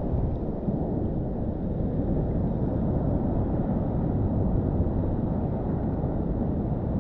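Steady muffled low rumble of sea water and wind against a GoPro held at the ocean's surface.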